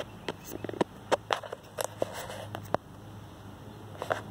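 Sharp scissors snipping the hair on a Miniature Schnauzer's ear: a string of about a dozen short, irregularly spaced snips.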